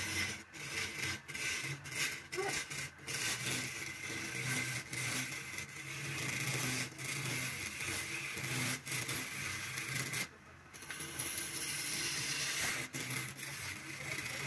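Turning chisel cutting a spinning wooden blank on a lathe: a continuous scraping hiss as shavings peel off, over a low steady hum from the lathe. The cut breaks off briefly about ten seconds in, then resumes.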